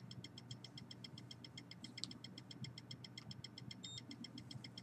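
Faint, fast, even electronic ticking, about ten ticks a second, over a low steady hum, with one short high beep about four seconds in.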